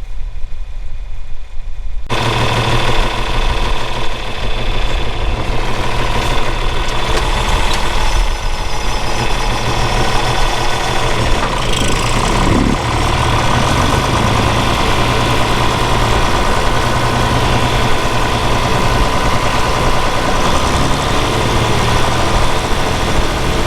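A vehicle engine running steadily, with a wide rushing noise joining it about two seconds in that then holds steady.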